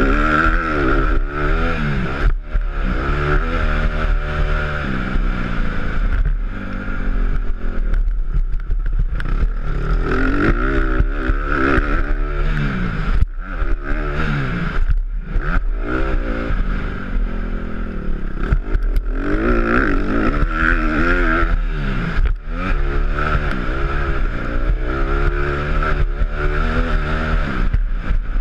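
Honda CRF150 dirt bike's four-stroke single-cylinder engine revving hard, its pitch climbing and falling again and again as the rider opens and closes the throttle through the gears, over a steady low rumble.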